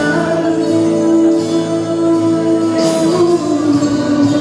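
Live band playing a song during a sound check, with singing; one long note is held through most of it.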